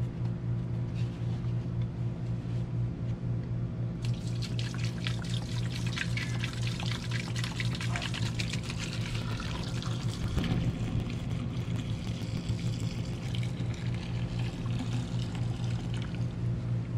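Evaporust rust remover pouring from a one-gallon plastic jug into an aluminum pot, starting about four seconds in and tapering off near the end. Under it runs a steady low hum from an air-conditioning unit.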